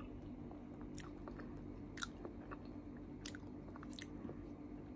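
Faint close-up mouth sounds of a person chewing food: scattered wet clicks and smacks at an irregular pace, over a steady low hum.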